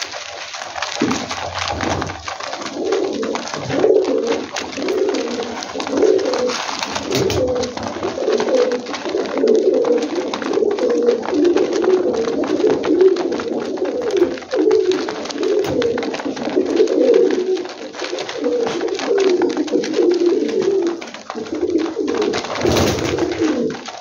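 Fancy domestic pigeons cooing over and over, several calls overlapping almost without a break, with short clicks of beaks pecking grain from a feed tray.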